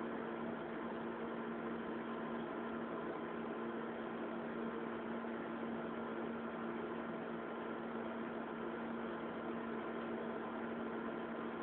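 Steady electrical hum with a faint even hiss, unchanging throughout; no cat sounds.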